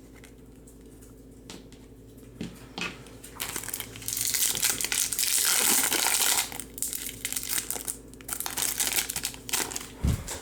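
A Topps Chrome trading-card pack's wrapper being crinkled and torn open by hand. The crackling comes in scattered bits, with a loud, dense stretch in the middle.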